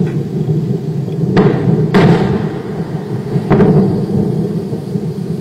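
A SpaceX rocket exploding and burning on the launch pad: a steady deep rumble broken by sharp bangs from the blast, the loudest about two seconds in, with others just before it and about three and a half seconds in.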